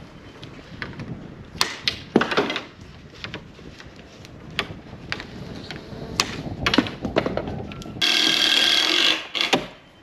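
PEX cutter snipping through half-inch PEX tubing: a scattered series of sharp clicks and snaps. Near the end comes a louder rasping squeal of about a second.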